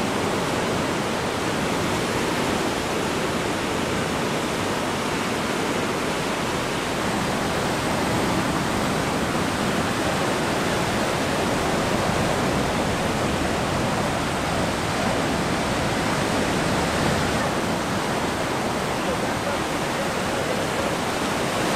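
Steady, even roar of breaking ocean surf.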